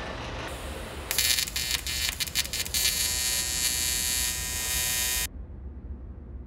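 Electric arc welding on an aluminium car frame. A loud buzz with irregular crackling comes in about a second in, settles into a steady buzz, and stops abruptly a little after five seconds. A low steady hum lies under it throughout.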